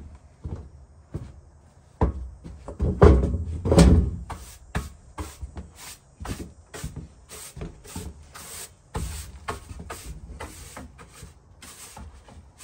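A series of irregular knocks and clunks, like things being handled or doors and cupboards being worked, with a louder burst of clattering about two to four seconds in.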